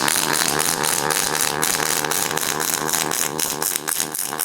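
Robotic MIG welding arc running: a steady, loud crackle of dense irregular clicks over a low buzz.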